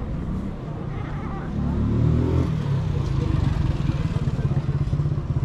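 Orange tabby cat purring close up as it is stroked: a steady, rapidly pulsing low rumble that grows louder about a second and a half in, the sign of a content cat.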